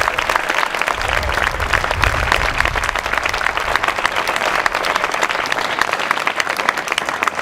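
Audience applauding: dense, steady clapping from many hands, with a brief low rumble about a second in.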